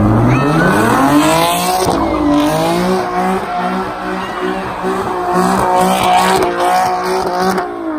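Car engine revving hard while the car spins donuts, with tires squealing. The revs climb over the first second or so, then hold high with a fast, even stutter, and the sound cuts off sharply near the end.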